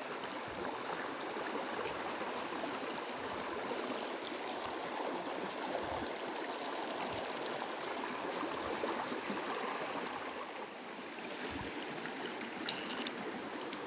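Creek water flowing and burbling steadily, with a few faint clicks near the end.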